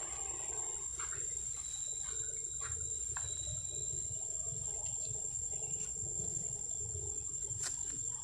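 Outdoor ambience: a steady high-pitched whine over a low rumble, with a few faint clicks and rustles.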